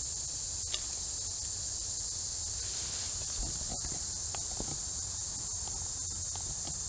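A steady, high-pitched chorus of insects droning without a break, over a faint low rumble, with a few soft ticks about midway.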